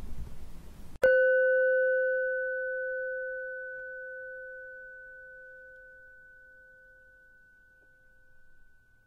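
A single chime is struck about a second in and left to ring: one clear, pure tone that slowly dies away. It marks the end of a guided meditation, calling the listener back.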